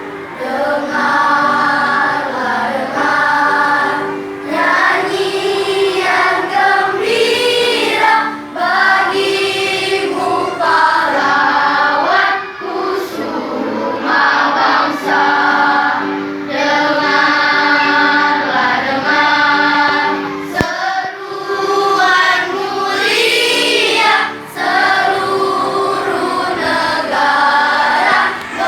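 A children's school choir singing together in phrases of long held notes, with short breaks between phrases.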